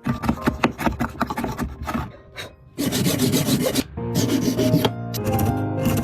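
Quick repeated rasping strokes of a tool on wood, then a denser stretch of scraping about three seconds in; music with held notes comes in over the last two seconds.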